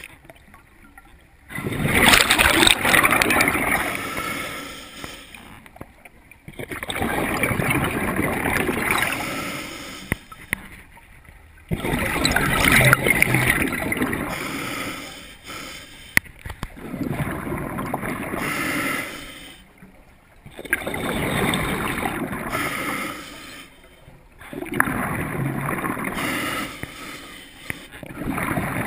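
Scuba diver breathing through a regulator: about six bursts of rushing, bubbling exhalation, each two to three seconds long and four to five seconds apart, with quieter inhalations between them.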